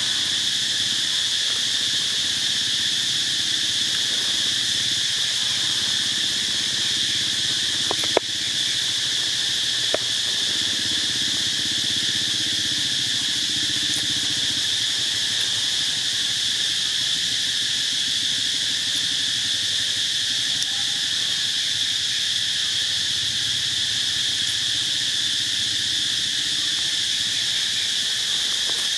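Steady chorus of insects, a constant high-pitched buzzing drone without a break. Two short sharp clicks stand out, about eight and ten seconds in.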